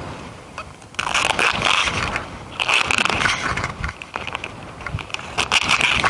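Rustling and scraping in repeated bursts, starting about a second in, with scattered sharp clicks.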